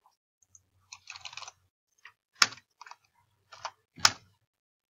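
Typing on a computer keyboard: a quick run of keystrokes about a second in, then scattered single key presses, with two louder clacks about two and a half and four seconds in.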